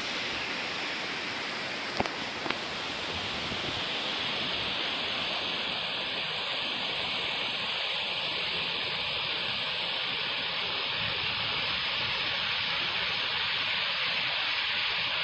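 Waterfall rushing steadily, a dense even hiss of falling water, with two brief clicks about two seconds in.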